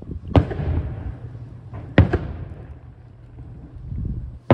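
Aerial firework shells bursting: three sharp booms about two seconds apart, each trailing off in a rolling echo.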